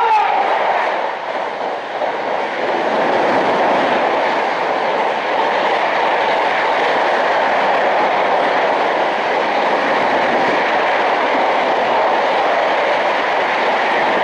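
Patna Sampoorna Kranti Express passing through at high speed: a loud, steady rush of coaches and wheels on the rails. At the very start, the locomotive's horn cuts off with a drop in pitch.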